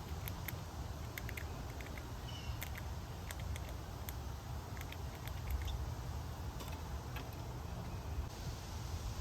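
A squirrel gnawing and munching food close to the microphone: quick, irregular small crisp clicks, over a steady low rumble.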